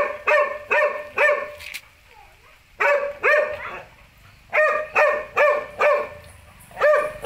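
A dog barking in short, sharp barks, grouped in quick runs of two to four with pauses between.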